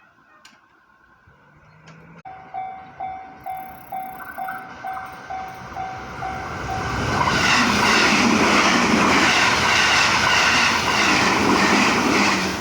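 Japanese railway level-crossing alarm starts ringing a couple of seconds in, a sharp repeated ding at about two strokes a second. A train then passes over the crossing, its loud wheel-on-rail noise covering the alarm for about five seconds before the alarm is heard again near the end.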